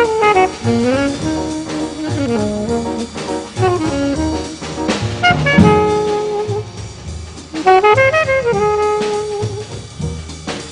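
Jazz background music: a saxophone carries the melody over a steady drum-kit beat.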